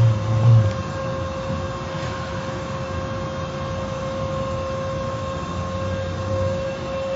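Car wash machinery running: a steady rush of noise with a constant whine.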